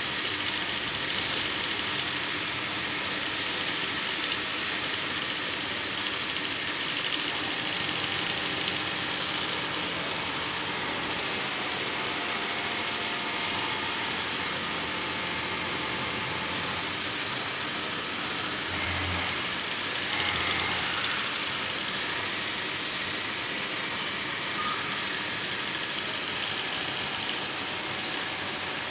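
CNC vertical machining centre milling a metal block: steady spindle and cutting noise with a hiss, over the running of other machines.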